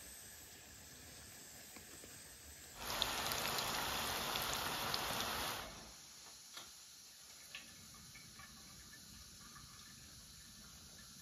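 Hot oil sizzling loudly in a frying pan for about three seconds, starting abruptly about three seconds in and then dropping away. Otherwise a low steady hiss from a camping gas burner, with a few light clicks of a utensil.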